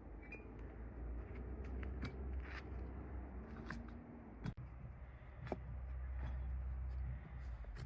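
Scattered small clicks and snips of hand food preparation with kitchen tools, irregular and a few a second, over a steady low rumble.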